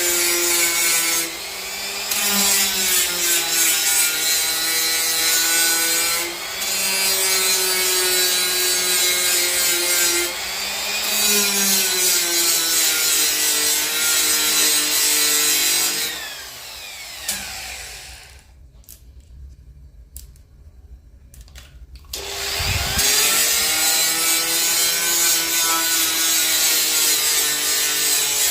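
Milwaukee M12 cordless die grinder running a carving bit into black walnut wood, a high motor whine with a grinding, rasping edge that sags in pitch each time the bit bites. Past halfway it winds down and stops, a few light clicks follow, and then it spins back up with a rising whine and carries on grinding.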